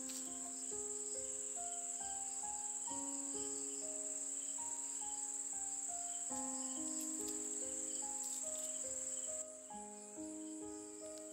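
Steady high-pitched chirring of insects, dropping in level about nine seconds in, over soft background music of slow single sustained notes. A few faint knife taps on a wooden chopping block.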